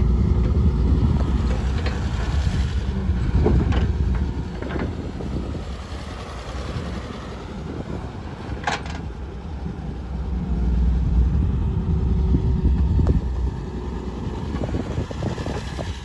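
Diesel engines of heavy machinery (backhoe loader and tractors) running, rising and falling in loudness. A few sharp metallic clanks come through, the clearest a little past halfway.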